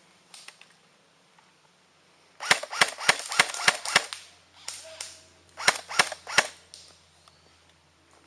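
Airsoft guns firing semi-automatic: a quick string of about six sharp snapping shots, roughly three a second, then three more after a pause of a second and a half.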